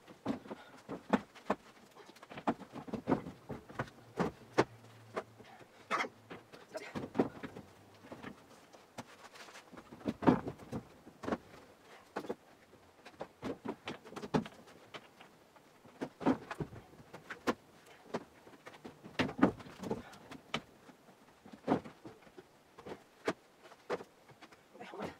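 Irregular knocks and clunks of old wooden window sashes being set down one on another onto a stack, with footsteps on loose loft floorboards between them.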